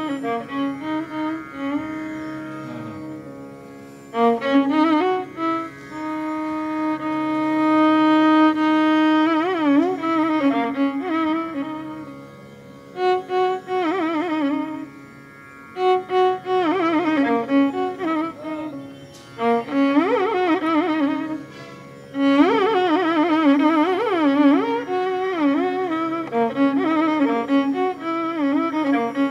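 Background music: a Carnatic-style melody on a bowed string instrument, mixing long held notes with wavering, sliding ornamented ones.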